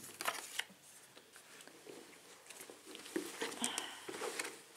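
Faint rustling and a few light clicks of hands rummaging through a fabric backpack full of clothes and small purchases.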